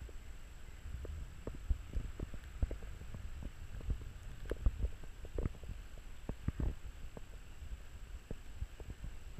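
Muffled low rumble with irregular thumps and knocks from a moving GoPro Hero 3 Black in its housing, the loudest knocks about halfway through, over a faint steady high tone.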